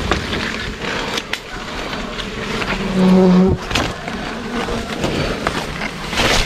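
Bees buzzing around their nest in the tree. About three seconds in, one flies close and gives a loud, steady buzz for about half a second. Leaves and branches rustle and snap throughout as they are handled.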